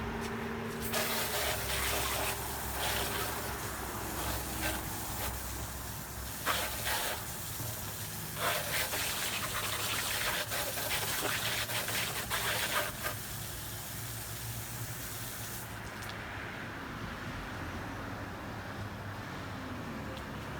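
Water spraying hard from a hose nozzle, hissing as it hits the truck's engine bay. It starts about a second in, breaks off briefly twice, and stops about three-quarters of the way through.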